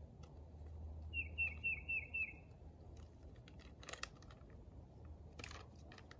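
A songbird sings a short phrase of five quick, repeated falling whistled notes about a second in, the loudest sound here. Two brief rustles follow later, over a steady low background hum.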